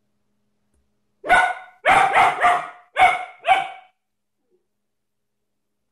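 A German shepherd puppy barks six times, starting about a second in and ending within about two and a half seconds: a single bark, a quick run of three, then two more.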